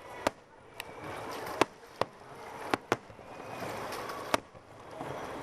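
Fireworks going off: about six sharp bangs at uneven intervals, the loudest near the middle and near the end.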